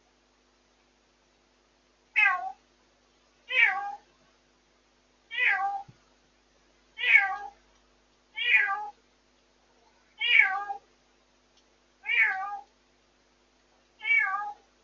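A cat meowing over and over: eight calls, starting about two seconds in and coming roughly every one and a half to two seconds, each one falling in pitch.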